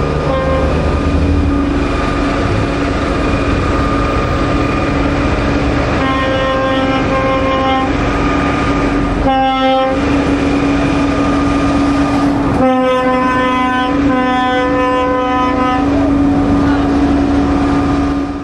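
Lorry air horns blowing over the rumble of passing trucks: one horn tone held throughout, with longer multi-note horn blasts about six seconds in, a short one near ten seconds and a longer one from about thirteen to sixteen seconds.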